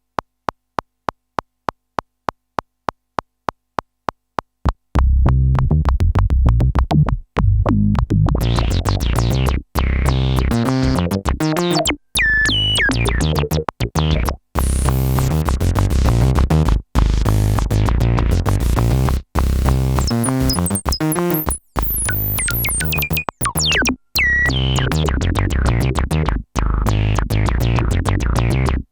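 Waldorf Microwave synthesizer playing a sequenced electronic pattern with bass and drum-machine beats, entered after about five seconds of a steady click, about four a second. The sound cuts out briefly about every two and a half seconds.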